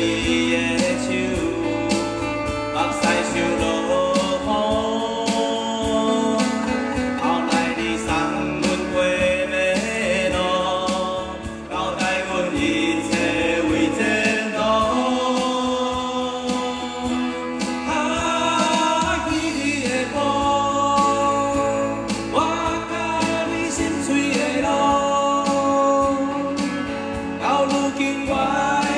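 A small live band of men singing together, with two acoustic guitars and an electric bass, playing a Taiwanese-language song.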